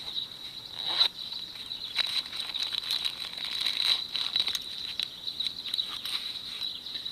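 Crickets trilling steadily in the background, with irregular small clicks and rustles from a small wallet being handled and opened.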